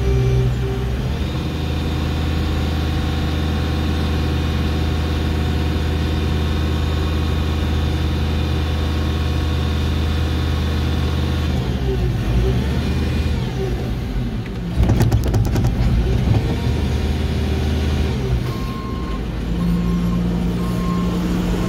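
Telehandler's diesel engine running, heard from inside the cab, its note shifting as the boom is worked, with a louder, rougher stretch about two-thirds of the way in. Near the end a regular beeping warning alarm starts.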